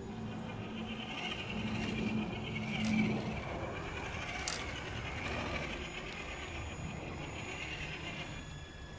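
Traxxas TRX-4 Ford Bronco RC crawler's electric motor and geartrain whining as it crawls over rocks, the whine wavering in pitch as the throttle changes, with a sharp click about four and a half seconds in.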